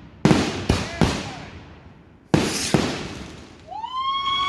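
Consumer fireworks going off: five sharp bangs, the last two about two and a half seconds in, then a whistling tone that rises and holds steady for about a second near the end.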